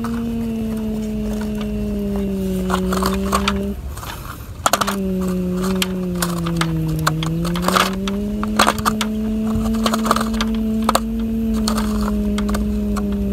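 Crunching and scraping of a plastic toy excavator bucket digging into dry dirt and stones, over a steady humming drone that glides slowly in pitch, breaks off about four seconds in and resumes a second later.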